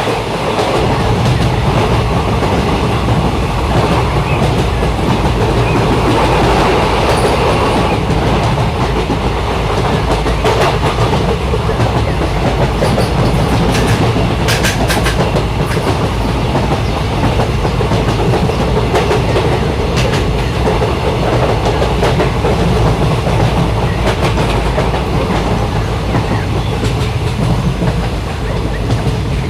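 A moving train, its wheels running on the rails in a steady, loud rumble, with a few sharp high clicks about halfway through.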